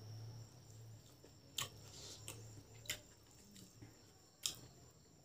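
Close-miked eating of rice and boiled pork by hand: quiet chewing with three sharp mouth smacks, about a second and a half apart.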